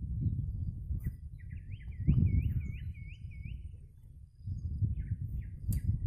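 A bird calls a quick run of about six whistled notes, each swooping down and back up, over steady low rumbling noise. A single sharp click comes near the end.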